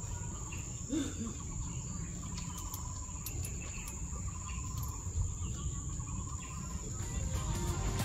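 Outdoor morning ambience: a steady high-pitched insect drone over a low rumble, with faint bird calls.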